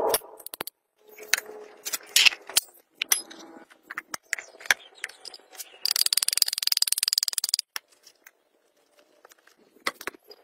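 Metal clinks and knocks of tractor transmission parts, bearings and shafts, being handled and fitted into a cast gear housing. About six seconds in, a rapid run of metallic hammer taps, a bearing being driven into its housing, lasts about a second and a half.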